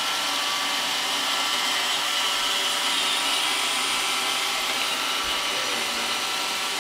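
Roomba robot vacuum running, a steady whir of its vacuum motor and brushes.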